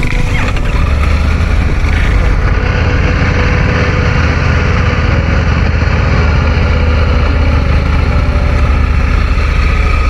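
Motorcycle engine idling steadily.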